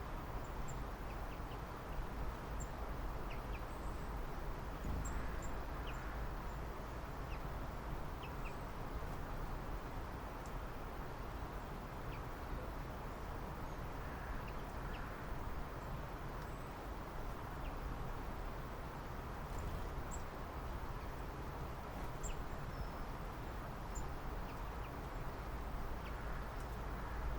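Scattered short, high bird chirps and calls over a steady background noise of outdoor ambience.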